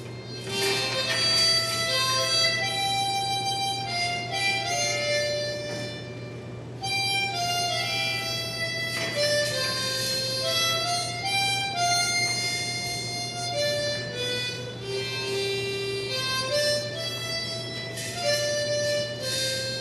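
Harmonica playing a slow melody of held notes and chords, over a steady low hum.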